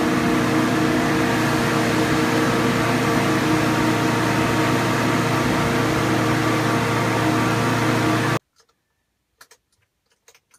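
Boat lift's engine running steadily with a low hum and several held tones while it lowers a boat in its slings into the water. It stops abruptly about eight seconds in, leaving a few faint clicks.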